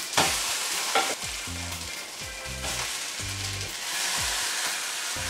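Oat-flake-crusted schnitzels sizzling in hot oil in a frying pan as they are turned over, the sizzle swelling about four seconds in. Two sharp knocks come near the start, about a second apart.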